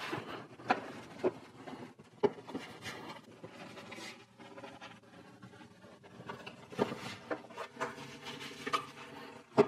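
Aftermarket M Sport-style plastic front bumper cover being worked by hand into the mounting tabs along its top edge: scattered light clicks, taps and plastic rubbing on plastic, with a sharper click near the end.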